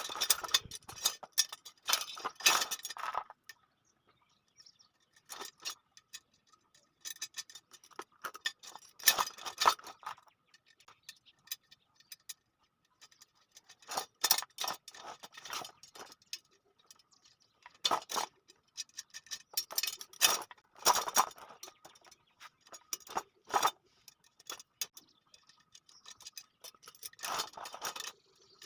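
Steel spokes clinking and ticking against each other and the metal hub drum and rim while they are threaded in, with short bright rings, coming in irregular clusters with quiet gaps between them.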